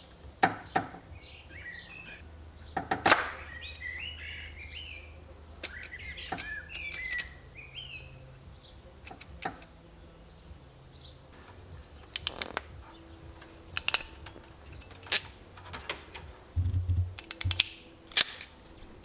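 Scattered sharp clicks and knocks of hand work with tools and parts on the engine, while the 123 electronic ignition distributor is fitted. Birds twitter in the background for the first half.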